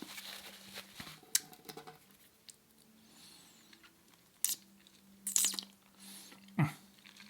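Close-miked mouth sounds: scattered sharp clicks and brief sucking noises as food is worked out from between the teeth, over a faint steady hum.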